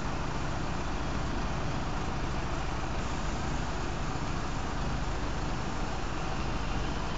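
Crane diesel engines running steadily under load during a tandem lift, a constant low rumble with a hiss over it.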